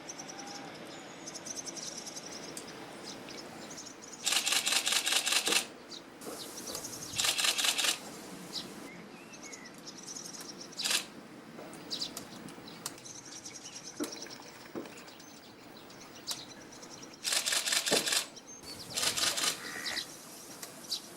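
A camera shutter firing in four rapid bursts of about a second each. Between the bursts come short, high chirps and twitters of swallows over a steady rush of wind.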